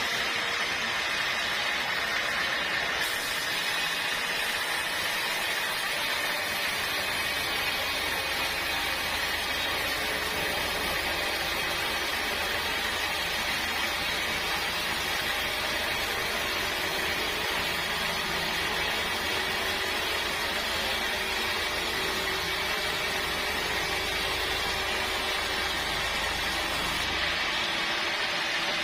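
Sawmill saw running steadily, cutting teak log. A low hum comes in about a quarter of the way through and drops out shortly before the end.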